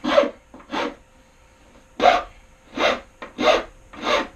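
Hand rasp filing the edge of a wooden table in separate push strokes: two strokes, a pause of about a second, then four more at a steady pace.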